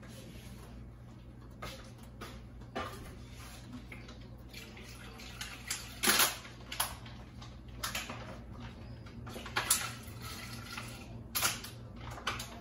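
Kitchen handling sounds: irregular clicks and knocks, the loudest about six seconds in and again near the end, over a faint watery hiss.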